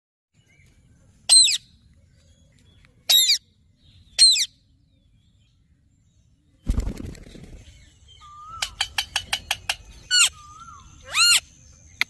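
Indian ringneck parakeets calling: three loud, shrill screeches in the first half. Then come a low thump with a rustle, a quick run of clicks with a short falling whistle, and two more screeches near the end.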